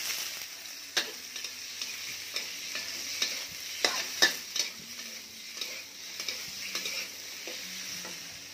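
Food sizzling in a hot metal wok while a metal spatula stirs and scrapes it, with sharp knocks of the spatula against the pan, the loudest about four seconds in.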